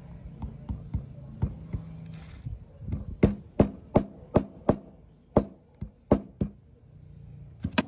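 Hammer blows on metal: a few light taps, then a run of about ten sharp strikes at two to three a second, each with a short ring.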